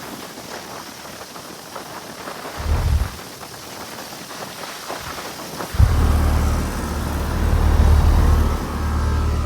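Brand-new 3.5-ton Grandaire heat pump outdoor unit running, its condenser fan giving a steady rushing of air. A brief low thump comes about three seconds in, and a loud low rumble starts suddenly about six seconds in and holds.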